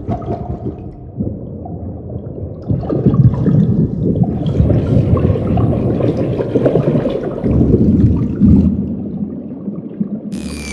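Rushing, gurgling water, like a toilet flushing, churning low and getting louder about three seconds in. Near the end, a falling whistle-like tone comes in.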